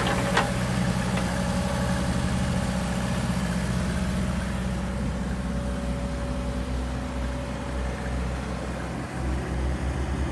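Excavator engine running steadily at a low, even speed, with a faint steady whine above it and a light knock shortly after the start.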